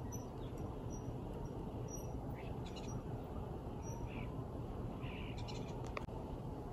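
Small birds chirping faintly and sporadically, short high notes scattered over a steady background hiss, with one sharp click about six seconds in.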